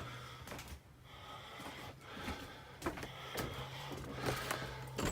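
A steady low hum with scattered light knocks and clicks of someone moving about and handling things.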